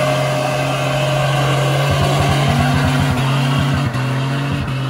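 Lifted Toyota Tacoma pickup doing a rolling burnout: the engine is held at high, steady revs while the rear tyres spin and smoke. Around the middle, the note breaks up into a choppy flutter for a second or two.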